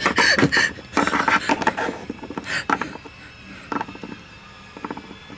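Small plastic toy figures handled and knocked against each other and the tabletop. A loud burst at the start is followed by a quick run of clicks and rustles for about two seconds, thinning to scattered clicks.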